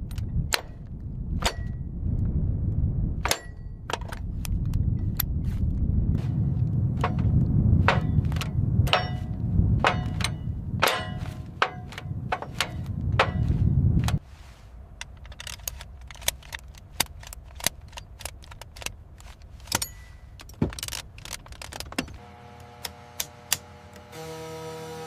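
A run of sharp metallic clicks and clangs, some ringing briefly, over a low rumble that cuts off suddenly about halfway through; sparser clicks go on after it, and near the end a few steady musical tones come in.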